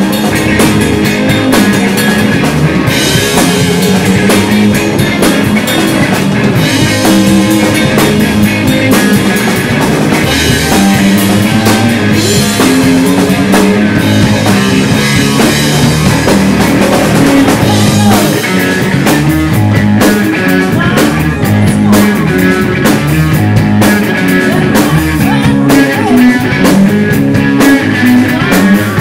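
A live rock band playing loud: distorted electric guitar, bass guitar and a drum kit.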